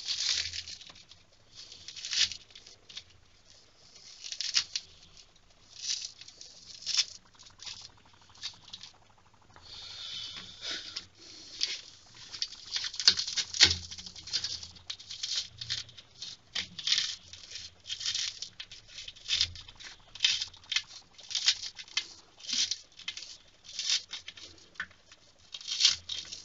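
Knife cutting through a set slab of jaggery-coated puffed rice: short, crunchy, scratchy strokes, one or two a second, as the slab is scored into squares.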